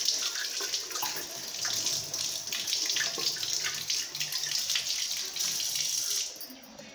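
Water running from a tap into and over a plastic milk bottle as it is filled and rinsed, splashing; the running water stops near the end.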